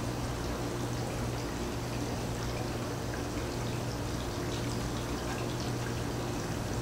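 Steady hiss of running, trickling water with faint scattered ticks, over a low steady hum.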